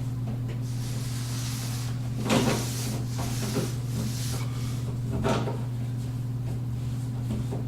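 Plastic drain parts (a PVC P-trap and its slip nuts) being handled and fitted by hand under a bathroom sink, with two brief knocks or rattles. A steady low hum runs underneath.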